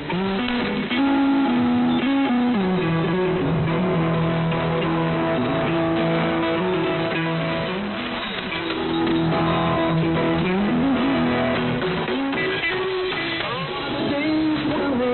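Guitar-led music played over a shortwave AM pirate broadcast, heard through the radio receiver with its narrow, treble-less sound. The melody moves in long held notes.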